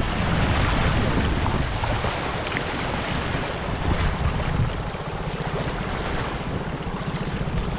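Rushing, churning water of fast tidal rapids around an inflatable dinghy, with wind buffeting the microphone; it is loudest in the first half and eases a little after about five seconds.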